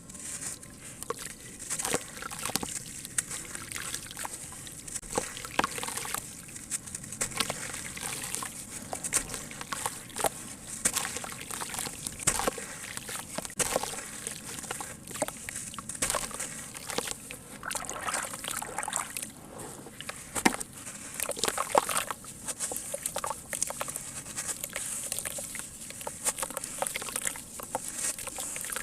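Lumps of sand cement crumbling in water, a dense, irregular run of crackles and small watery splashes.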